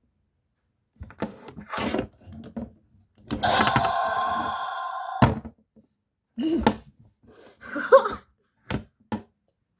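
Plastic dinosaur toy figures knocked together in a pretend fight: a series of irregular knocks and thunks, with a drawn-out pitched roar-like cry lasting about two seconds in the middle.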